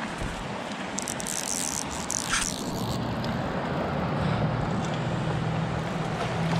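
Creek water flowing steadily, with a brief hissing splash between about one and three seconds in and a low steady hum coming in from about three seconds.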